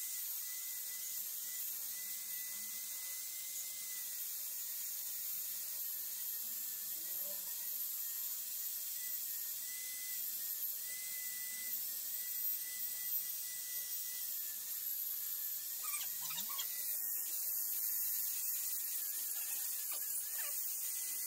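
Electric core drill running steadily with a high whine as its core bit cuts through the fibreglass skin and soft concrete blockwork of a pond wall.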